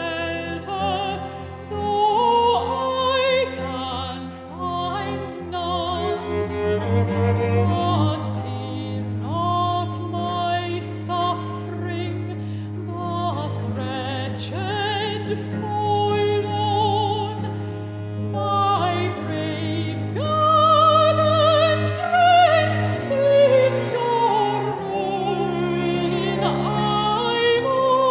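Classical female voice singing an art song with wide vibrato, accompanied by a bowed cello sustaining low notes.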